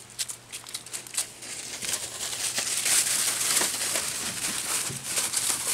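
Dry fallen leaves crunching and rustling underfoot: an irregular run of crisp crackles as feet move through a thick layer of leaves.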